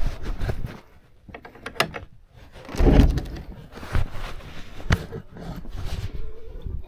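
Handling noises at a wooden chicken coop door: scattered clicks and knocks, with a heavier thump about three seconds in, as a plastic bucket is juggled and the door is worked open.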